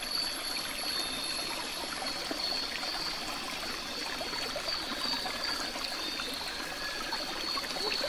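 Steady outdoor background hiss like a trickling stream, with a thin high steady tone running through it.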